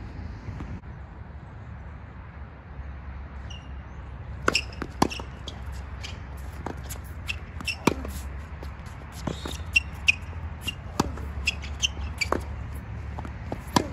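Tennis rally on a hard court: sharp pops of the ball struck by rackets and bouncing off the court, coming every second or so from about four seconds in.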